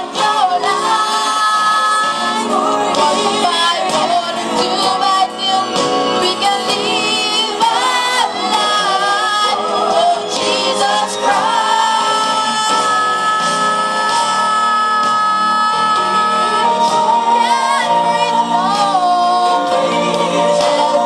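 Voices singing a gospel song in church over instrumental accompaniment, with long held notes that waver in pitch.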